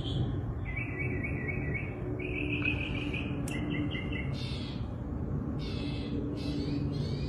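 A bird chirping in quick runs of short high notes, later turning to quick falling notes, over a steady low background rumble.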